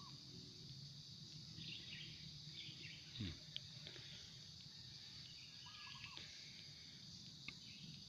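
Faint steady high chirring of an insect chorus, with a short bird call about six seconds in and a brief low thump a little over three seconds in.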